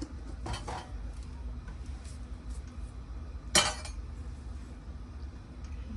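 Kitchen cookware clinking: a couple of light knocks about half a second in, then one sharp clink about three and a half seconds in, over a steady low hum.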